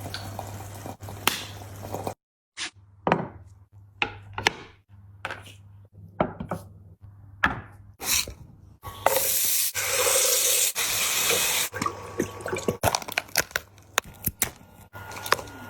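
Close-miked eating sounds: a run of sharp wet clicks and smacks, with a rushing hiss lasting nearly three seconds from about nine seconds in.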